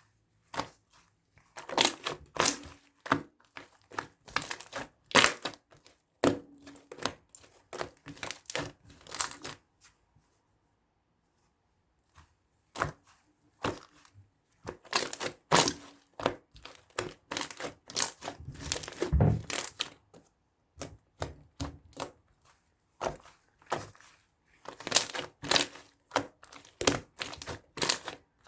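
Crinkling and crackling handling noise in quick clusters of sharp clicks, stopping for about two seconds near the middle before resuming.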